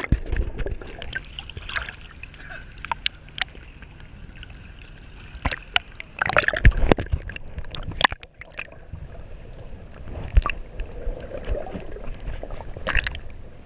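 Sea water sloshing, splashing and gurgling around a camera held at and just under the surface, with scattered sharp clicks and knocks. The loudest splashes come about six to seven seconds in and again near the end.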